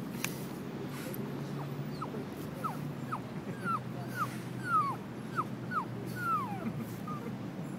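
A pug whining: a run of about ten short, high whines, each falling in pitch, loudest about five seconds in.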